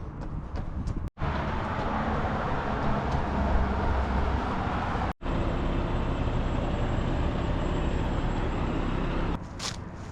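Steady roar of passing road traffic, broken twice by abrupt cuts between short clips and dropping to a quieter street background near the end.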